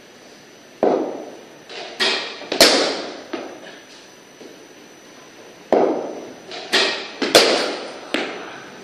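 Cricket ball cracking off a bat and knocking against the walls and floor of an enclosed practice net, with a ringing echo after each knock. Two deliveries are heard, each a cluster of four or five sharp knocks, the second beginning a little past halfway.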